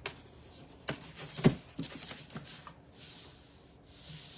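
A few sharp taps and clicks of painting supplies being handled, the loudest about a second and a half in, then soft brush strokes rubbing across the painting surface near the end.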